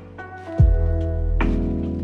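Background music with a slow beat: a kick drum about half a second in and a snare-like hit about a second and a half in, over sustained chords.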